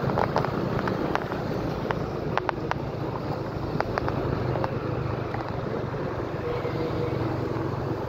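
Steady vehicle and road noise with wind buffeting the microphone: a constant low engine hum under a rushing hiss. Several sharp clicks in the first half.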